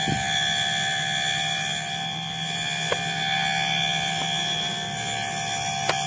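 Steady chorus of night insects in a rice paddy, many high buzzing and trilling tones held without a break over a low steady hum, with two short clicks.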